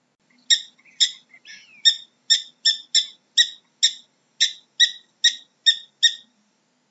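A ground squirrel gives its repeated alarm call: a run of about a dozen short, sharp, high chirps, roughly two a second, with a brief rising squeal among them. The chirps stop about a second before the end.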